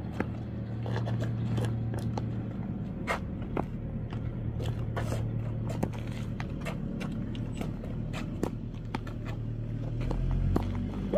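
Irregular light knocks and scuffs: a small foam ball played with soft children's rackets against a fronton wall, and shoes scuffing on asphalt. Under them runs a steady low hum that stops near the end.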